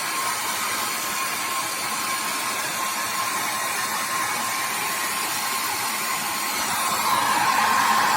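Hair dryer blowing steadily with a thin, steady whine, heating the plastic impeller of a car's heater blower fan to loosen it for removal. It gets a little louder about seven seconds in.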